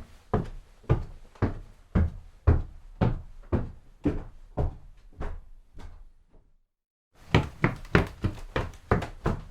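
Footsteps walking at about two steps a second, each a distinct knock, fading out. After a second of silence a faster run of footsteps begins, about four steps a second.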